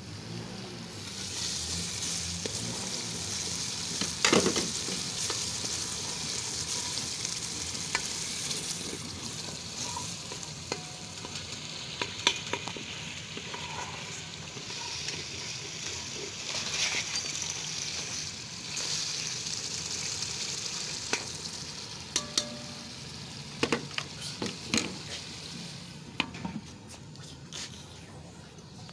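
Food frying in oil in an open aluminium pressure cooker, a steady sizzle with a wooden spoon stirring and clicking against the pot. Near the end the sizzle dies down and a few louder metal knocks come as the lid goes on.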